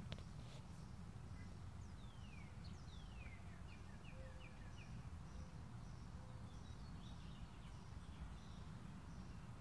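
Faint outdoor ambience: a steady low rumble with faint bird calls over it. There are two falling whistles about two and three seconds in, a quick run of short notes just after, and then a soft high chirp repeating steadily. A single click comes right at the start.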